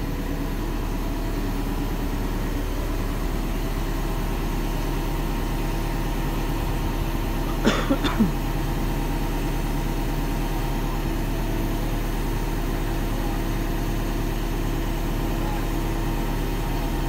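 Excavator's diesel engine idling steadily. A little before halfway, three quick knocks.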